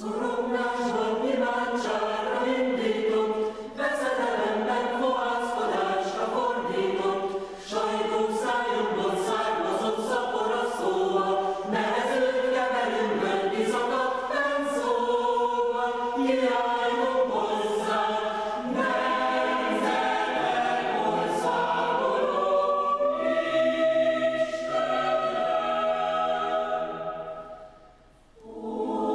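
Mixed chamber choir of women's and men's voices singing a cappella in several parts, the phrases broken by short pauses. Near the end the singing dies away to a brief silence, then a new phrase starts.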